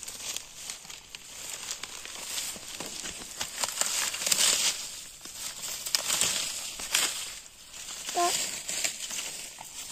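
Dry leaf litter and undergrowth rustling and crackling under a hand and a cleaver, with many sharp clicks that come in rushes. A short pitched call sounds once near the end.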